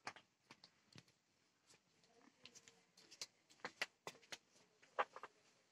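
Near silence with faint, scattered short clicks and ticks, sparse at first and more frequent in the second half.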